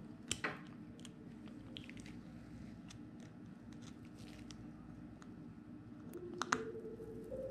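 Small clicks and taps of a Daiwa Alphas SV TW baitcasting reel's metal frame and parts being handled in gloved hands, over a low steady hum. A sharp click comes just after the start, and a few more near the end.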